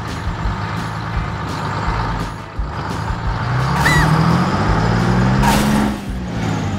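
Tractor engine sound running, its pitch rising as it revs up from about three and a half seconds in, with a short hiss about five and a half seconds in.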